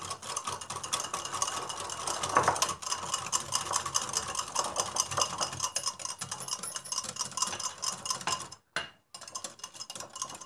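Wire whisk beating a mayonnaise dressing in a glass bowl: rapid, steady clicking and scraping of the wires against the glass. The dressing is being thinned with water as it is beaten. A brief gap of silence comes a little before the end.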